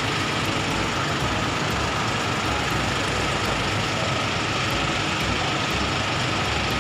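Minibus engine idling steadily: an even, unchanging running noise with a faint constant whine above it.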